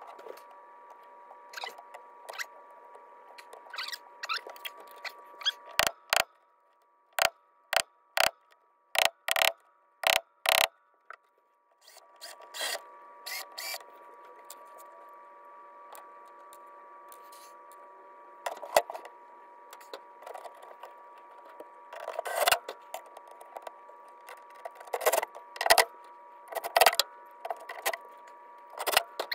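Scattered sharp clicks and knocks as a King Starboard cabinet door and its hinge hardware are handled and fitted against the cabinet frame, over a steady hum. The hum cuts out for several seconds partway through.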